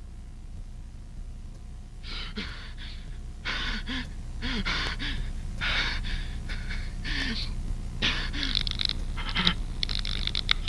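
A man breathing heavily in panic, short ragged gasps and pants with small voiced catches, starting about two seconds in and growing quicker and louder toward the end, over a steady low hum.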